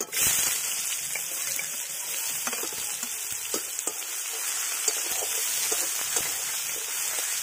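Chopped onions sizzling in hot mustard oil in a metal kadai. The sizzle starts suddenly as they go in and stays steady, with a metal spatula scraping and tapping against the pan as they are stirred.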